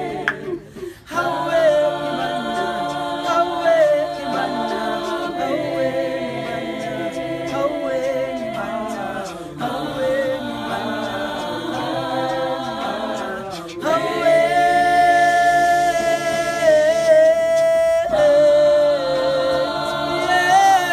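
A small mixed choir of young men and women singing a cappella in several voice parts, with no instruments. The singing breaks off briefly just after the start and grows louder about two-thirds of the way through.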